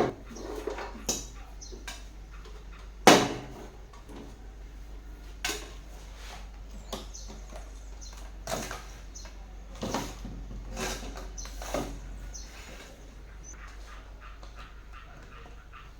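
A series of irregular knocks and clicks, the loudest about three seconds in, over a steady low hum.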